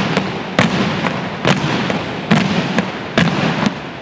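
A drill platoon's shoes stamping the hardwood gym floor in unison as the squad marches: about six sharp, echoing strikes at uneven spacing.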